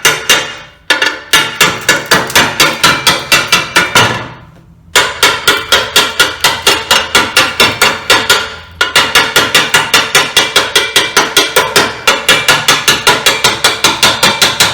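Slag chipping hammer rapidly striking hardened welding slag off a steel weld bead, about five sharp ringing blows a second. The blows come in runs with brief pauses between them.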